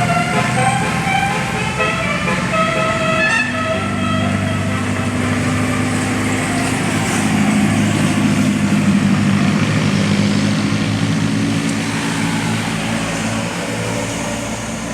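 Basuri telolet multi-tone bus horn playing a short tune of stepped notes, stopping about four seconds in. Then a bus engine's low drone grows louder and fades away as the bus passes.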